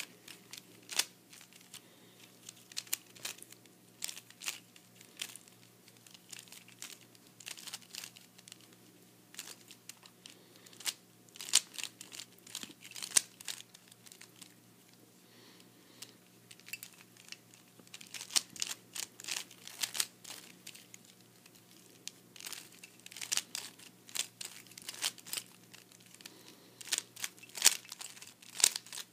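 Dayan Zhanchi 3x3 speed cube being turned fast by hand: quick runs of plastic clicking and clacking from the layer turns, broken by short pauses between runs.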